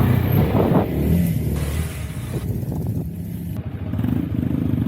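Motorcycle engine running at low revs on an off-road trail climb, the revs rising and falling.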